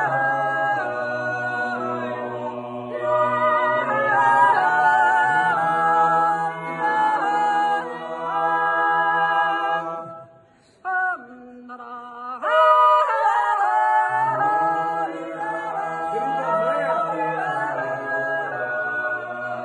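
A small group singing unaccompanied in close harmony, with a wordless, yodel-like lead over held low chords, in the manner of an Appenzell Zäuerli sung in a circle. Shortly after the middle the voices drop out for about two seconds, leaving a single low note, then the singing comes back in full.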